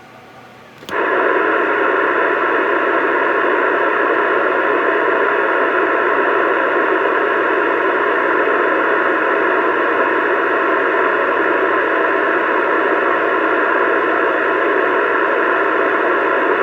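CB radio speaker hissing with steady static, cutting in with a click about a second in.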